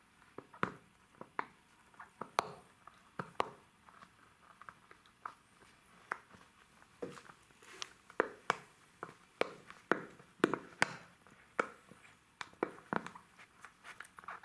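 Jack Russell terrier puppy chewing and gnawing a spiky rubber toy: irregular clicks and crunches of teeth on rubber, coming faster and louder in the second half.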